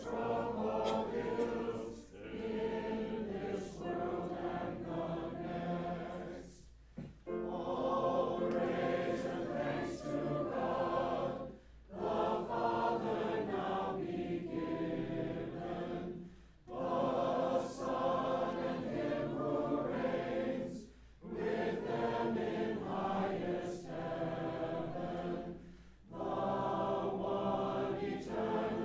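Congregation singing a hymn together, phrase by phrase, with short breaks between lines.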